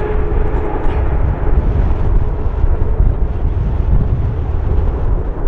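Jet noise from a Boeing 777-200LR's GE90 engines: a steady, loud rumble, with a faint engine whine that fades out about a second in. Wind buffets the microphone throughout.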